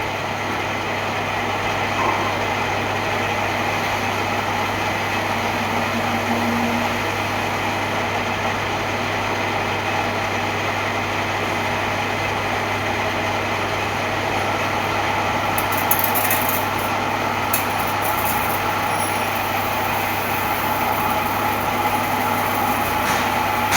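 A machine running steadily, with a constant electric motor hum and even mechanical noise throughout.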